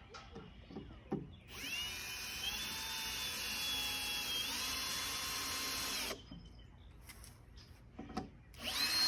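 Power drill running in a burst of about four and a half seconds, its whine rising as it spins up and stepping higher in pitch before cutting off. It starts again shortly before the end. A few light knocks come before each run.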